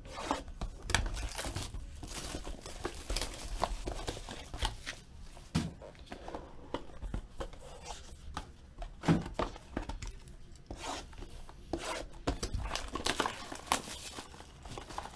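A sealed Topps Triple Threads trading-card box being torn open and handled: irregular crinkling and tearing of its wrapping, with small cardboard knocks as the mini-box inside is pulled out.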